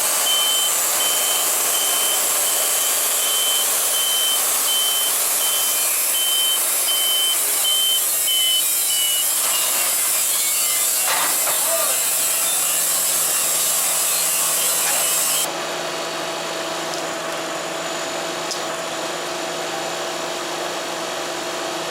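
A machine's reversing alarm beeping about once a second over the running noise of equipment, stopping about nine seconds in. About fifteen seconds in the hiss drops away suddenly, leaving a steadier machine hum.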